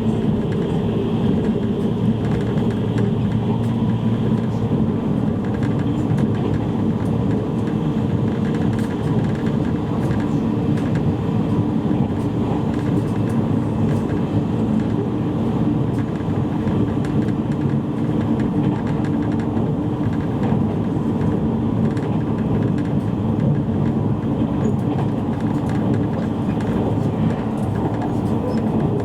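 Steady running noise of a JR East E653 series electric train at speed, heard inside the passenger cabin of a motor car: an even rumble of wheels on rail and the drive equipment beneath the floor.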